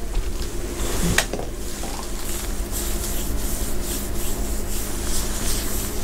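Hands handling wires and a small circuit board, with repeated short rubbing and scraping sounds and a click about a second in, over a steady low hum.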